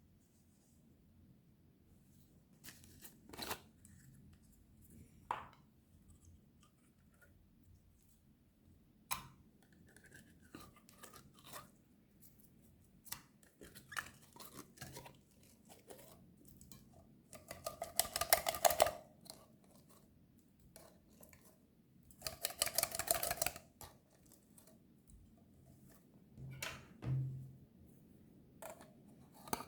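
Close-up handling sounds: scattered soft taps and clicks, with two louder stretches of rapid crackling, like crinkling or tearing, each lasting a second or two, near the middle and again a few seconds later.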